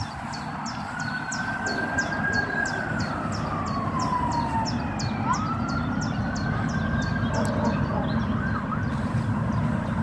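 A distant emergency-vehicle siren wails, rising and falling slowly twice, over a steady low rumble of wind on the microphone. A bird repeats a short high note about twice a second until near the end.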